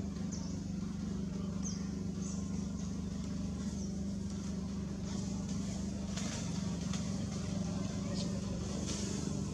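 A steady low engine drone runs throughout, with short high chirps and a few faint clicks over it.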